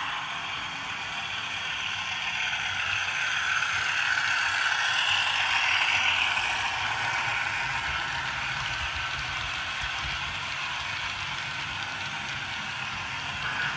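OO-gauge model train running through the layout, the whir and clatter of its motor and wheels on the track. It grows louder as it comes out of the tunnel about four seconds in, then eases as it passes.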